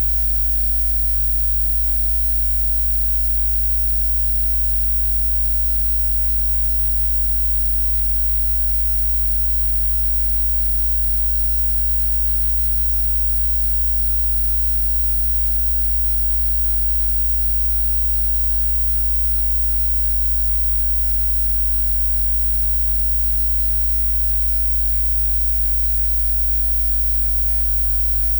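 Electrical hum and buzz from a bad audio cable connection: a deep mains hum with a buzz and hiss over it, held steady.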